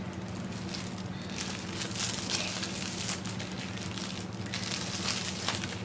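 Clear plastic snack packet crinkling and rustling irregularly as it is handled and opened and a block of puffed snack is pulled out.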